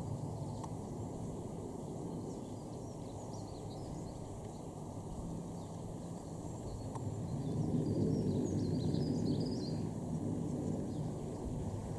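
Outdoor ambience: a steady low rumble that swells for a few seconds past the middle, with small birds chirping now and then over it.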